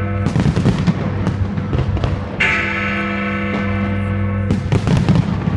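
Fireworks bursting in clusters of sharp bangs, about a second in and again near the end. Between them, a large bell, Big Ben striking the midnight hour, rings once about two and a half seconds in and goes on ringing.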